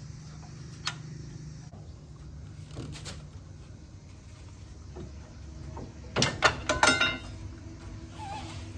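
Heavy four-wheel-drive front axle assembly being rolled down, with a low hum and a few scattered clicks, then a quick run of loud metallic clanks and knocks with some ringing about six to seven seconds in.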